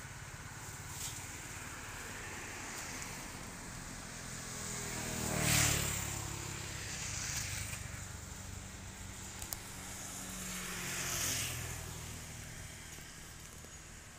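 A motor vehicle drives past, its engine note sliding down in pitch as it goes by, loudest about five and a half seconds in. A second, fainter vehicle passes a few seconds later.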